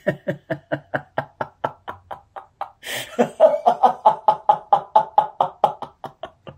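A man laughing in a long run of rapid 'ha' bursts, about five a second, as a villain's cackle. About three seconds in there is a sharp breath, then a second, louder and higher-pitched run of laughter.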